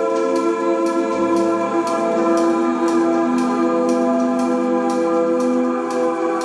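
Music played through Q Acoustics 3050 speakers: sustained organ-like chords over a steady, high ticking beat at about two to three ticks a second.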